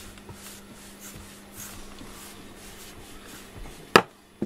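Soft, repeated strokes of a FURminator deshedding brush combing through a cat's fur, a faint scratchy hiss with each pass. One sharp click sounds about four seconds in.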